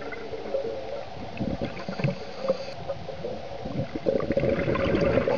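Underwater ambience on a scuba dive: scattered clicks and crackle over a steady low hum, then a louder rush of a diver's exhaled bubbles from about four seconds in.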